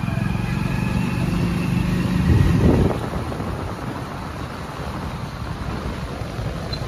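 A motor vehicle engine running close by, growing loudest about two and a half seconds in, then fading away and leaving a lower, steady street rumble.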